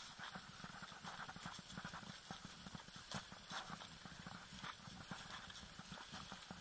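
Footsteps of several people walking over grass and fallen leaves: irregular scuffs and light crunches at a walking pace.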